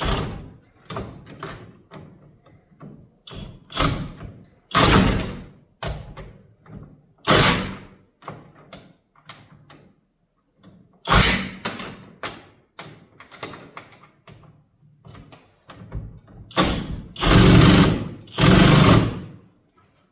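Impact gun running in short bursts of about half a second to a second, several seconds apart, with two longer bursts near the end, driving in the bolts of a garage door's roller bracket. Small metal clicks and clanks come between the bursts.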